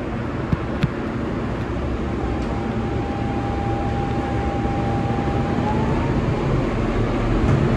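R160B subway car pulling out of a station and picking up speed: a steady rumble of wheels on the track that grows slowly louder, with a thin motor whine that comes in about two seconds in and rises slightly near the end. Two sharp clicks sound under a second in.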